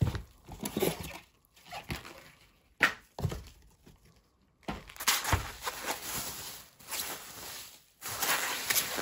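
Coin packaging being handled by hand while it is unpacked: irregular rustles and light knocks, with a sharp click about three seconds in and a few short quiet gaps.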